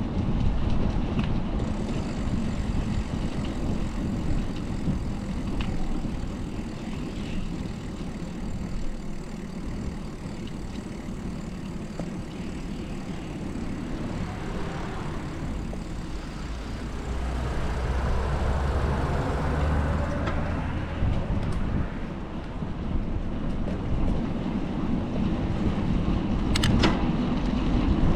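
City street traffic heard from a moving bicycle: a steady low rumble of road and wind noise, with a heavier vehicle passing close by a little past the middle, and a couple of sharp clicks near the end.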